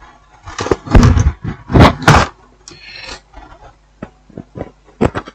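Knocks and clatter of TV parts being handled and set back in place during reassembly, with several loud knocks in the first couple of seconds, a brief scrape about three seconds in, and lighter clicks near the end.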